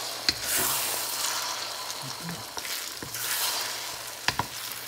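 Beaten eggs sizzling in hot oil in a wok as a wooden spatula stirs and pushes them, the sizzle swelling and fading as the egg is moved. Two sharp clicks, one just after the start and one near the end.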